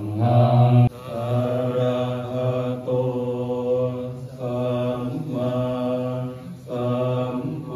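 A group of Theravada Buddhist monks chanting together in a low, steady monotone. The chant runs in phrases a second or two long, with short breaks for breath between them.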